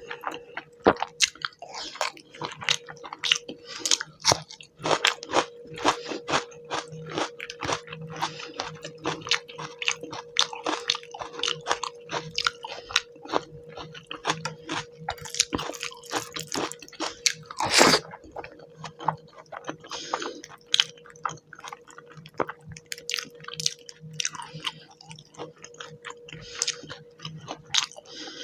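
Close-miked chewing and squishing of rice and fish curry eaten by hand, a dense run of wet mouth clicks, smacks and occasional crunches, with a faint steady hum underneath.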